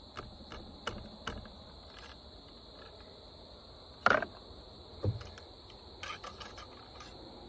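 Muzzleloader ramrod with its handle pushing the load down the barrel, a few sharp knocks and clicks, the loudest about four seconds in, followed by a duller thud and a short rattle of small clicks. Crickets chirr steadily behind.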